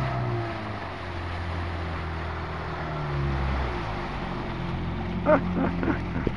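Small 1950s Johnson two-stroke outboard motor running as the inflatable dinghy it pushes passes close by. Its engine note shifts in pitch a few times as the boat turns.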